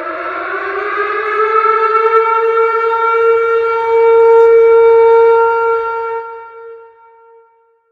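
Tornado warning siren sounding one cycle: the tone rises in pitch over the first couple of seconds, holds loud and steady, then dies away about six to seven seconds in, leaving a faint lingering tone.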